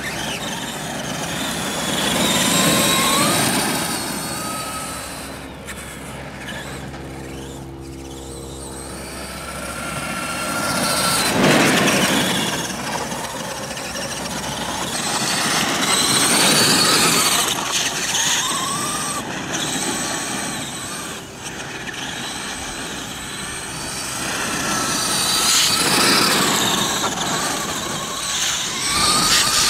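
Radio-controlled Traxxas monster truck driving on a dirt track: a high motor whine and the noise of its tyres on gravel swell and fade several times as it speeds past close by and moves away again.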